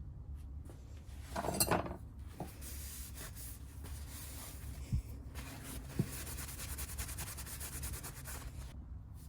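Rubbing and wiping on a forged steel knife blade, cleaning off the blue layout fluid, with a louder swish early on and two light knocks later.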